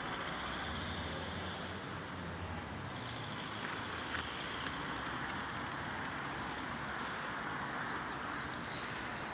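Steady outdoor traffic noise: a low, even rumble of road vehicles with a hiss over it.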